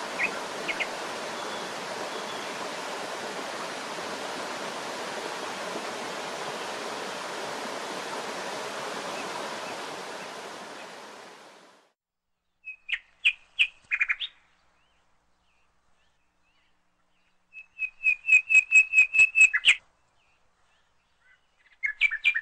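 A mountain stream rushing over rocks, with a few bird chirps, fades out about halfway through. After that, small birds sing in near silence: three separate phrases of quick, repeated high notes, the middle one a trill of about ten notes.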